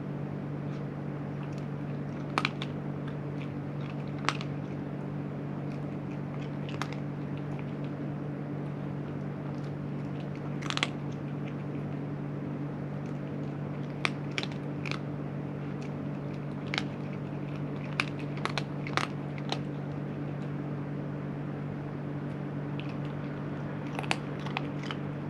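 A cat crunching dry food, with sharp crunches at irregular intervals, over a steady low mechanical hum.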